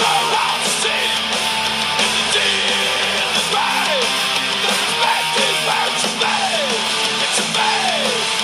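Guitar-led background music, with a string of falling slides in its melody about every second.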